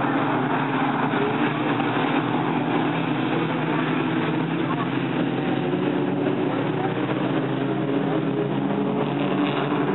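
A pack of dirt-track stock cars racing around an oval, their engines running together in a steady, continuous mix.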